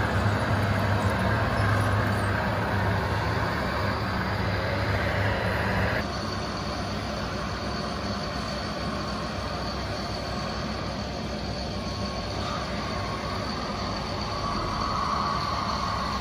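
Radio-controlled scale model trucks and construction machines running, a steady mechanical drone with a low hum. The sound changes abruptly about six seconds in, after which it is quieter with a thin high whine.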